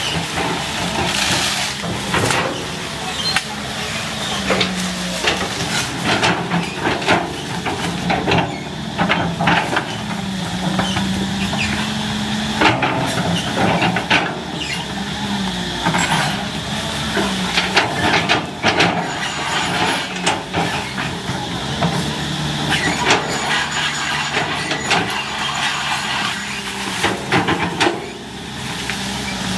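CAT 320C hydraulic excavator's diesel engine working under load. Its pitch rises and falls as the boom and bucket move, with repeated sharp knocks and cracks throughout.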